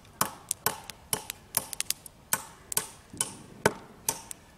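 Hatchet chopping firewood into smaller pieces: sharp knocks about two a second, each with a short ring.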